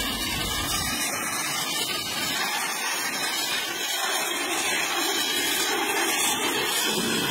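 Pressure-washer jet spraying water against the back of a truck trailer, a steady hiss.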